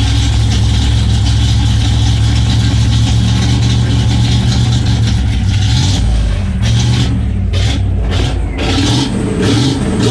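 1998 Dodge Ram 1500's 5.9-litre V8 running through a blown-out muffler, a loud, steady low exhaust note whose pitch wavers briefly about six seconds in.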